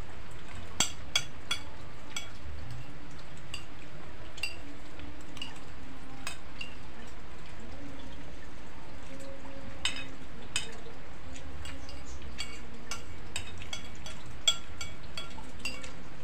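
Spoons and hands clinking now and then on plates and bowls during a meal, scattered sharp clicks over a steady hiss.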